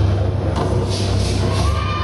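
Music with a deep, steady bass line.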